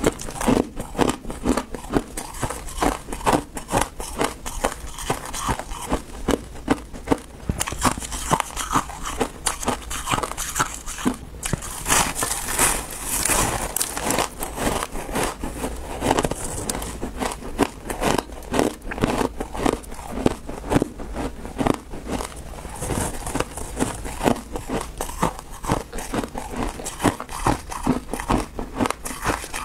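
Close-miked crunching and chewing of refrozen ice blocks: a dense, irregular run of crackling crunches as the ice is bitten and broken between the teeth, with a brighter, hissier stretch of crunching about halfway.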